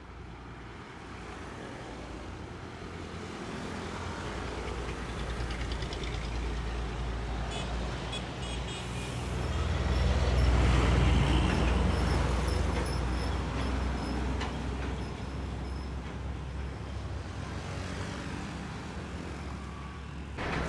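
Heavy road traffic dominated by the deep rumble of a Volvo FH12 semi-truck's 12-litre six-cylinder diesel as it passes close by. The rumble grows louder to a peak about halfway through and then eases off. A thin high whine rides over it for several seconds in the middle.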